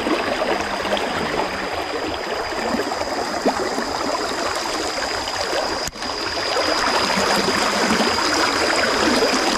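Creek water flowing in a steady, even rush.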